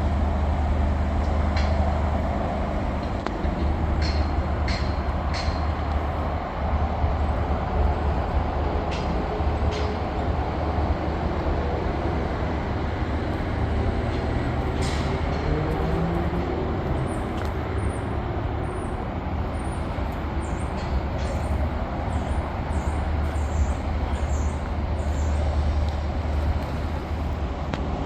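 Train at a station: a steady low rumble, with short high squeaks scattered through, more of them in the second half.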